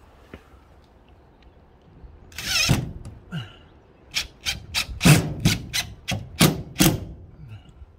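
Cordless drill driving a screw through a dome camera's mounting base into a fibre cement soffit: one longer run about two and a half seconds in, then about nine short trigger bursts between about four and seven seconds as the screw is pulled home.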